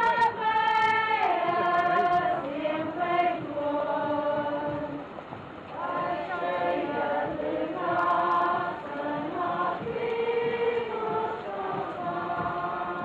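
A group of voices singing a hymn together, with long held notes that glide from one pitch to the next.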